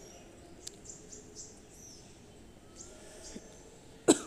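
Faint, scattered chirps of small birds in the background, with one sharp knock near the end.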